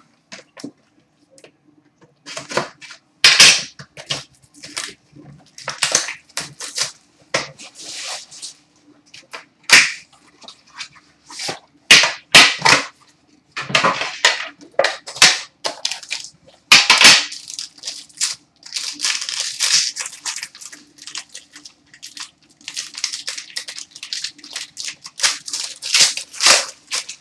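Plastic wrapping of an Upper Deck Premier hockey card box and pack being torn open and crumpled by hand: a long run of short, irregular crinkling rips and rustles. A faint steady hum runs underneath.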